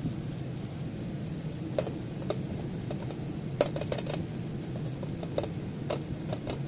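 Metal spatula scraping and clicking against a wok as fried rice is stir-fried: short sharp scrapes, several close together about three and a half seconds in, over a steady low hum.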